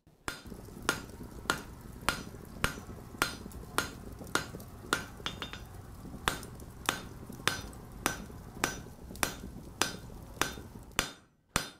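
Hammer blows on an anvil in a steady rhythm, a little under two a second, over a low steady hum; the blows pause briefly near the end.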